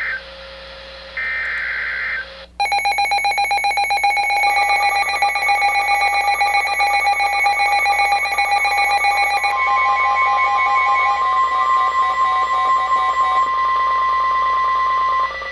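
Two harsh digital data bursts of an Emergency Alert System (SAME) header, about a second each. They are followed by about 13 seconds of a loud electronic alert tone made of several rapidly pulsing beeps, joined by a long steady tone about halfway through. It signals the start of a new weather warning.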